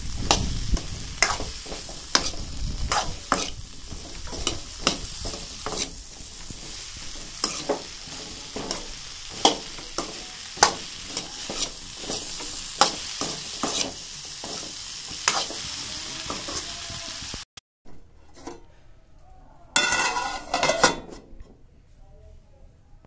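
Chopped okra frying in oil in a metal kadhai, with a steady sizzle, while a steel spoon stirs it, scraping and clicking against the pan many times. About two-thirds of the way through, the sizzle and stirring stop abruptly, and a brief clatter follows a few seconds later.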